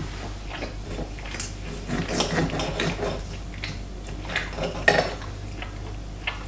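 Knife and fork scraping and clicking on a ceramic dinner plate as a steak is cut, with a couple of sharper clinks about two-thirds of the way through.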